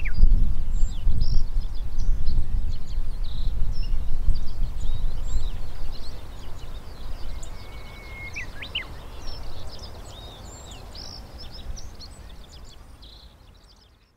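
Low wind rumble on the microphone, strong at first and easing after about six seconds, with many small birds chirping and twittering throughout. Everything fades out to silence near the end.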